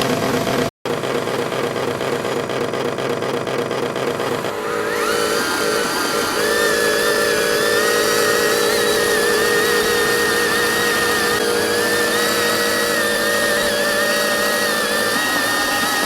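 RC Scania truck's small electric motor and gearbox whining as it strains to pull a heavy 20-litre water container. The whine wavers in pitch. The sound breaks off for a moment about a second in, and its tone changes around four and a half seconds in.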